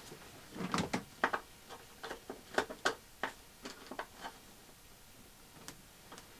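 Metal ring lugs on battery cables clicking and tapping as they are handled and fitted onto a positive bus bar stud. A string of small clicks runs through the first four seconds, then one more click near the end.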